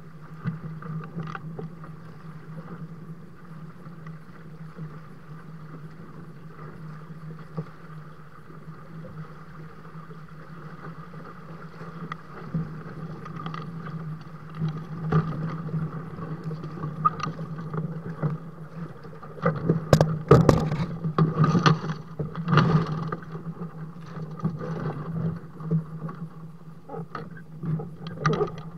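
Water rushing and slapping against the twin hulls of a Dart 15 Sting catamaran sailing through choppy water, with a steady low hum underneath. A burst of louder splashes comes about twenty seconds in, and smaller slaps come and go.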